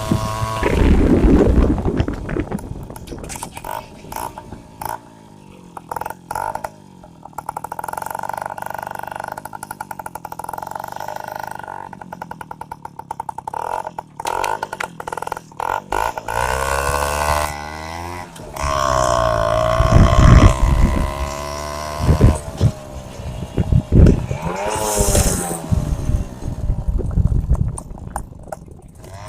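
Bajaj M80's single-cylinder two-stroke engine running, with a rapid uneven popping at low revs, then revved up and down several times in the second half.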